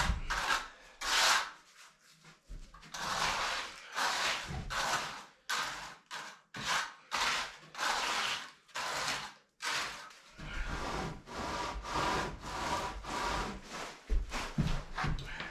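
Repeated rasping back-and-forth strokes of a hand tool working wet concrete, roughly one stroke a second with a few brief pauses.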